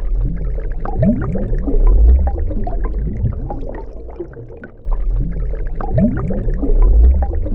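Low animal calls: short rising moans over a deep, steady rumble, repeating about five seconds apart.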